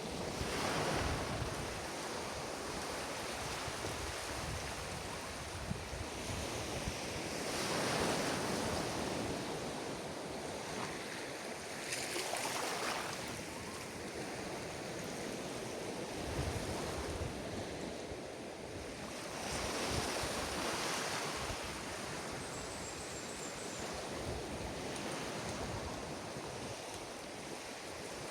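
Ocean surf on a beach: a continuous hiss of breaking waves that swells and ebbs as each wave breaks and washes up, the strongest surges about eight and twenty seconds in.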